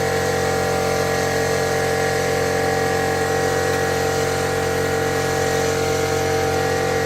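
Steady machine hum in a workshop, an even drone of several fixed tones at constant loudness, from air or suction equipment running with the air-hydraulic riveter.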